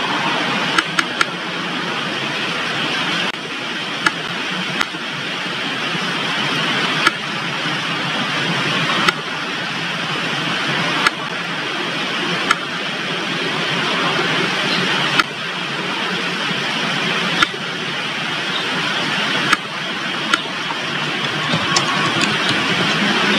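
Sharp single clicks of a computer mouse, one every second or two, over a steady rushing background noise.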